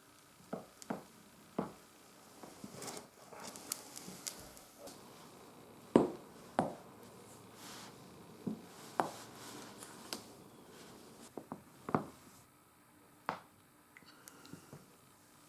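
Body joints cracking: a scattered series of sharp pops and clicks, the loudest about six seconds in and again near twelve seconds, with faint rustling of clothing and movement between them.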